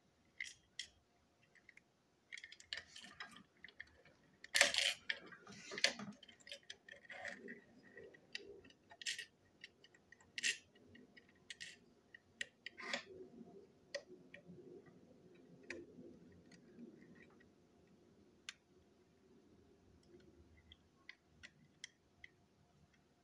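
Small plastic and metal parts of a toy engine being handled and taken apart: scattered clicks and light taps of tiny pieces, with a louder clatter about five seconds in and softer rubbing and handling noise later.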